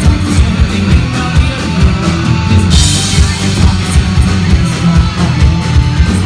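Live rock band playing loud: electric guitars, bass guitar and drum kit driving a steady beat, with a cymbal crash a little under halfway through.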